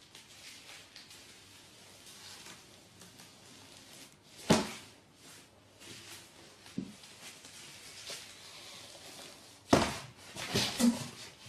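Dull knocks and scuffs of a cat bumping about in a cardboard box: one sharp knock about four and a half seconds in, then a louder cluster of knocks and scraping near the end.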